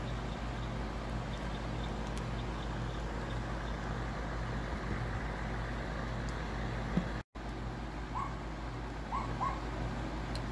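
Kindling fire of sticks and dry leaves burning in a small charcoal grill, with a few faint crackles over a steady low rumble. The sound cuts out for an instant a little after the middle, and a few short chirps follow near the end.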